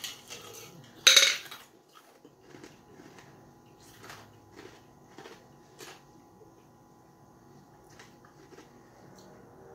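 Ice cubes clattering in a plastic tumbler as it is tipped up to the mouth, loudest about a second in. Then ice being crunched between the teeth, a short sharp crack about every half second, thinning out after about six seconds.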